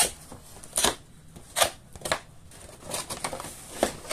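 Long cardboard rifle box being handled and opened: several sharp scrapes and knocks as the lid and flaps rub and bump against each other.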